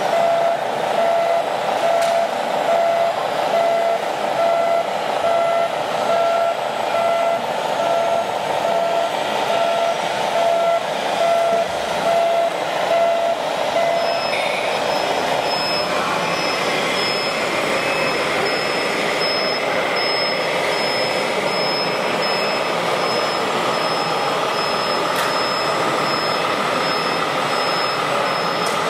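Reversing beepers of radio-controlled model construction vehicles, beeping about twice a second over the hum of the models' drives. About halfway through, a mid-pitched beeper stops and a much higher-pitched one takes over.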